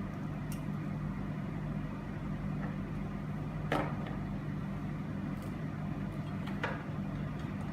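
A steady low mechanical hum, with two light knocks, one about halfway through and one near the end, from nursing equipment being handled as it is put away.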